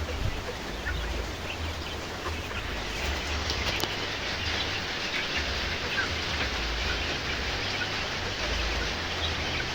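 Steady rain, an even hiss, with scattered faint short high chirps from chickens.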